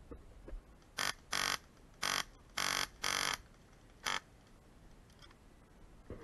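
Airsoft rifle firing six short full-auto bursts in quick succession, each a fraction of a second long, the last one shortest.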